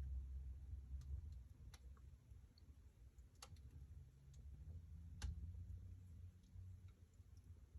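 Wood fire in a fireplace crackling: a handful of sharp, scattered pops over a faint low rumble.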